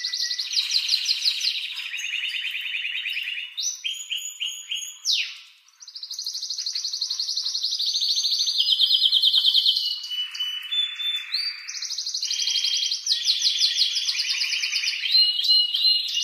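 Male domestic canary singing an excited, unbroken song of fast trills and rolls, switching every second or two between high rapid trills and lower, buzzier rolls, with a short break about five seconds in. This is the worked-up breeding-season song of a male canary.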